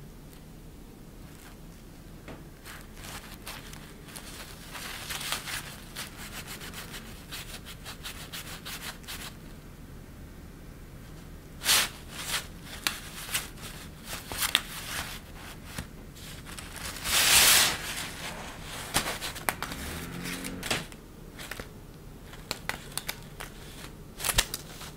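Shiny plaid fabric sheet rustling and crinkling as a wand cat teaser is pushed and dragged under it, in irregular swishes. The rustles are soft at first; from about twelve seconds in come sharper crackling swishes, the loudest a long swish a little past halfway.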